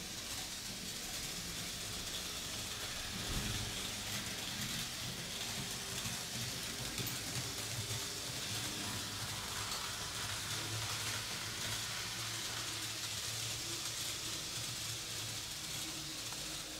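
Märklin 3021 H0-scale V 200 diesel locomotive model running on the layout just after repair: a steady whir of its electric motor and wheels rumbling on metal track, with a low hum.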